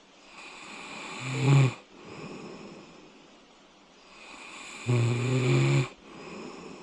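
A man snoring in his sleep with a nasal strip on: two loud, low-pitched snores, a short one about a second and a half in and a longer one of about a second near five seconds in, with quieter breathing between them. He judges that the strip does not stop his snoring.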